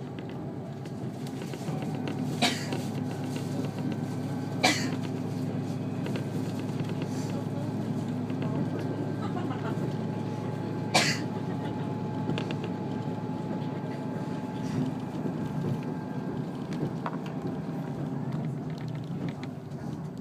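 KiHa 54 diesel railcar running, heard from inside the cabin: a steady low diesel engine drone with wheel and rail noise, broken by three sharp knocks about two and a half, four and a half and eleven seconds in.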